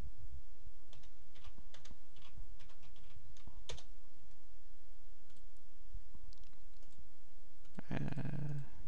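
Computer keyboard typing: a run of light key clicks with one sharper key press about three and a half seconds in. Near the end comes a brief murmur of a voice.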